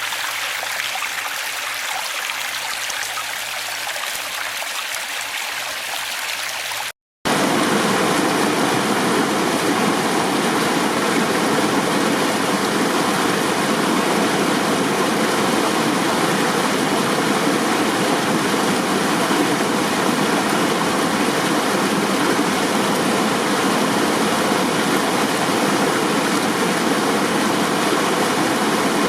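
Running water rushing steadily, like a stream. About seven seconds in, the sound drops out for a moment and comes back as a louder, fuller rush that carries on steadily.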